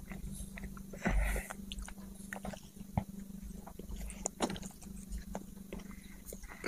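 A person chewing a mouthful of burger and bun with short wet clicks and smacks, and a louder rustling, breathy patch about a second in. A low steady hum sits underneath.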